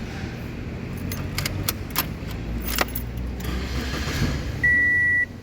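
Keys jangling and clicking, with the Toyota Corolla's engine running low underneath, then a single steady high electronic beep near the end.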